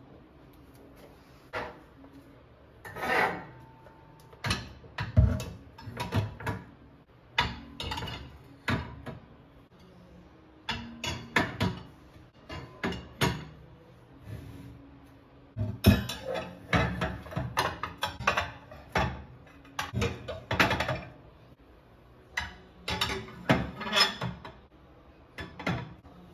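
Ceramic dinner plates clinking and knocking against one another and against wire plate racks as they are slotted upright into the racks on a shelf. The sharp clatters come in repeated clusters with short pauses between them.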